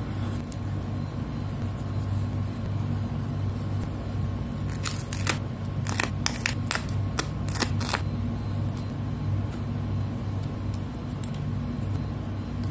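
Sharp clicks of metal tweezers handling and pressing paper stickers, about a dozen in quick succession between about five and eight seconds in, over a steady low hum.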